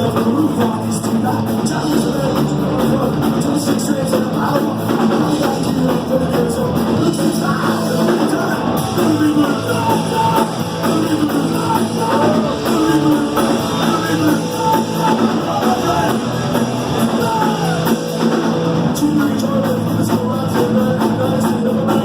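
Punk rock band playing loud and fast: distorted electric guitar, drum kit and vocals.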